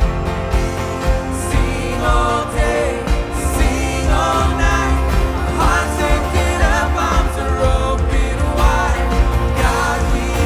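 Live church worship band playing a praise song, with steady bass and sustained keyboard chords; a singer's voice comes in about two seconds in and carries the melody.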